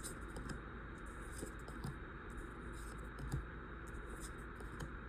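Pokémon trading cards being handled and slid one behind another from a freshly opened booster pack, giving faint scattered clicks and soft rustles.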